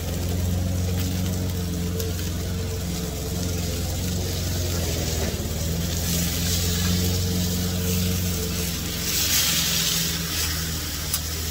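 Eye of round roast sizzling on a hot steel flat-top griddle. The sizzle swells about six seconds in and again, loudest, around nine to ten seconds, as the roast is turned over with spatulas. Under it the steady drone of a small engine runs throughout.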